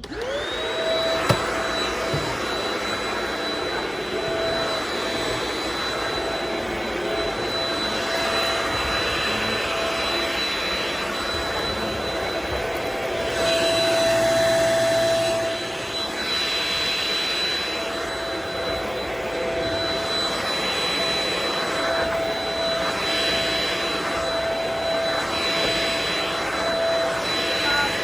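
A vacuum cleaner is switched on: its motor spins up to a steady high whine within the first second, with a sharp click just after. It then runs over a rug, the noise rising and falling every couple of seconds as it is pushed back and forth.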